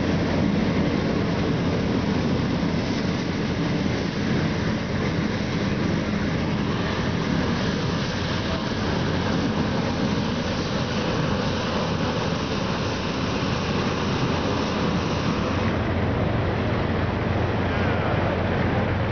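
Steady mechanical roar with a low hum from hot-air balloon launch equipment, running without a break.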